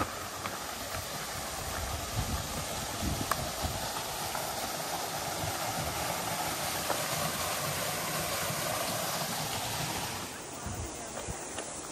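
River water rushing steadily over rocks, with an uneven low rumble underneath. The sound drops in level and changes abruptly about ten seconds in.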